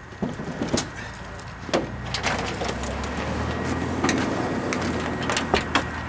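Car engine running with a low steady hum that swells about a second and a half in, with scattered sharp clicks and knocks over it.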